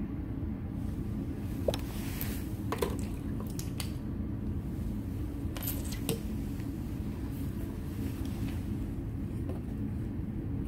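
Several light clicks and knocks as graduated cylinders are picked up and set down on a lab bench, heard over a steady low rumble.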